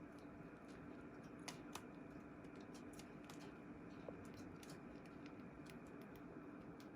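Faint, irregular small clicks and taps from baby budgies moving about their cage, over a low steady hum.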